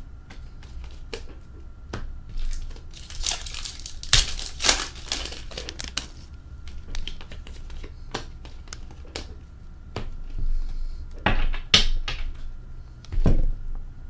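Hockey card packs being torn open, their foil wrappers crinkling and tearing in several loud rustling stretches, among many small clicks and flicks from the cards being handled.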